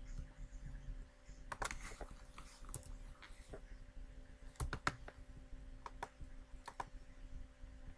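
Computer mouse clicking: several separate sharp clicks, including a close double click about halfway through, over a faint steady electrical hum.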